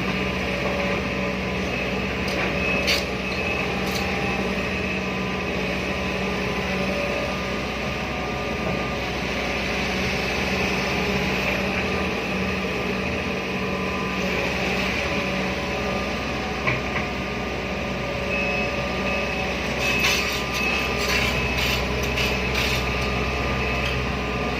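Excavator diesel engine running steadily, with a few sharp clicks and scraping knocks near the end as the machine works.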